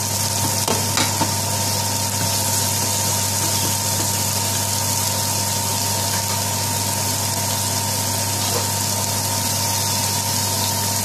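Chopped onion sizzling in vegetable oil in a frying pan: a steady, even hiss over a constant low hum and a faint steady high tone.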